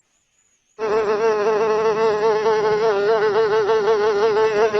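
Mosquito buzzing: a steady, high-pitched whine with a slightly wavering pitch, starting about a second in after a moment of silence.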